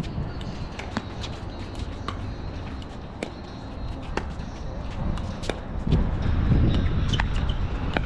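Pickleball doubles rally: sharp pocks of paddles striking the plastic ball, about once a second. A low rumble rises in the last couple of seconds.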